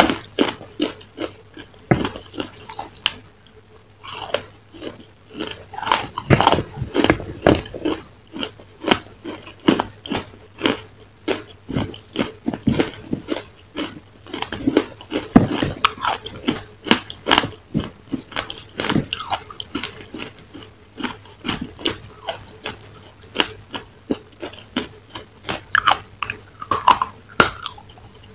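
Close-miked chewing and biting: a steady run of wet mouth clicks, smacks and small crunches, several a second, as a chocolate-coated dessert is eaten. A faint steady hum lies underneath.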